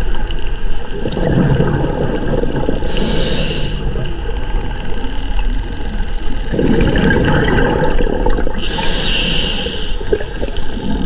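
A scuba diver's regulator breathing underwater: two bubbling exhalations, each followed by a short hissing inhalation.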